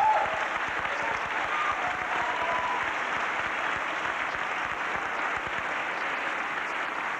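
Audience applauding, a dense steady clapping that is a little louder at the very start.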